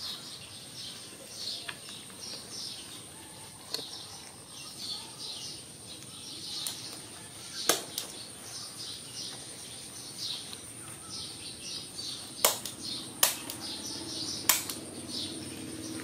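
Small birds chirping over and over in the background, with a steady high-pitched whine. A few sharp clicks stand out, one about eight seconds in and three between twelve and fifteen seconds, from small nail clippers trimming a baby monkey's nails.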